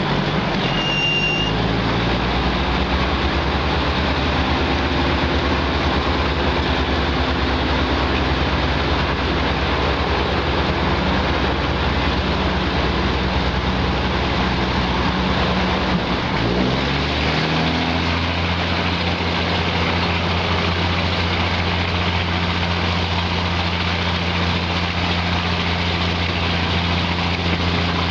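Diesel railcar engine running steadily while the train stands at a halt. A short high tone sounds about a second in. About two-thirds of the way through, the engine note rises and holds higher as the train pulls away.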